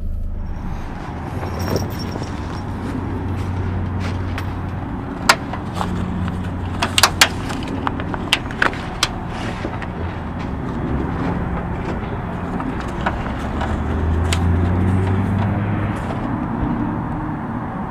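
Steady outdoor low rumble that swells twice, with a run of sharp clicks and rattles near the middle.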